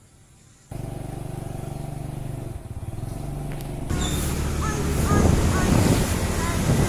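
Motorcycle engine running steadily, starting suddenly about a second in. About four seconds in it grows louder, with wind rushing over the microphone as the bike rides along the road, and a few short high chirps.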